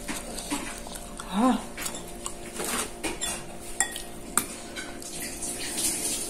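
Metal spoon clicking and scraping against a small glass bowl and a ceramic bowl in light, irregular clinks while eating. About a second and a half in comes a brief voiced "mm" from the eater.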